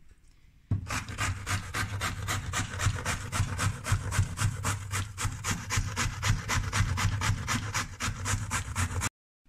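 Zucchini being grated on a coarse grater: quick, even rasping strokes, about four or five a second, starting about a second in and cutting off abruptly near the end.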